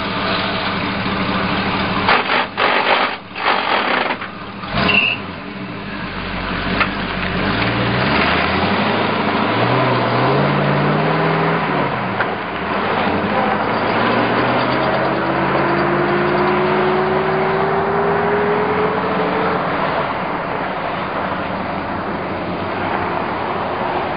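Small gasoline golf cart engine running, with several clunks in the first five seconds, then speeding up and running on steadily, with a thin rising whine in the middle. It cuts off suddenly at the end.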